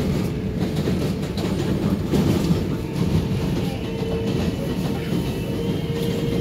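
R142A subway train running at speed, heard from inside the car: a steady rumble of wheels on rail with clattering over the rail joints and a steady tone through it.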